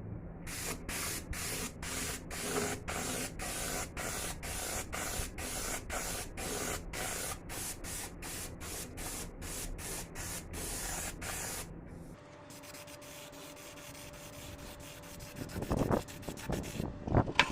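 Hand sanding of a plastic headlight lens: quick back-and-forth rasping strokes, about three a second, that stop about twelve seconds in. After that a faint steady hum, then a few louder scraping strokes near the end.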